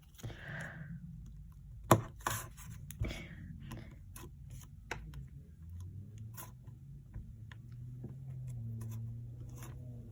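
Handling of a tub of Wonder Dough slime: scattered sharp clicks and light scraping and rubbing, with one louder click about two seconds in.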